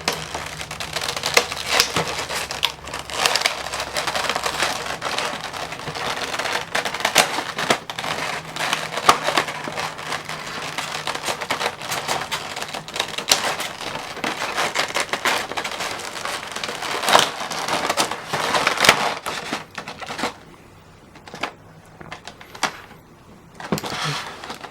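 Packaging crinkling and rustling, with many small clicks and taps, as an action figure is worked out of its box by hand. It quiets about twenty seconds in, leaving a few light clicks.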